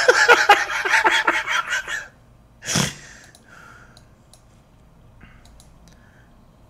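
A person's rapid, breathy vocal sounds for about two seconds, then one short, sharp breathy burst, then quiet room tone.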